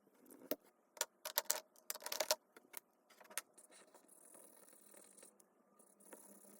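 A quick run of small hard clicks and rattles from toy pieces and packaging being handled, densest in the first few seconds, then faint scratching.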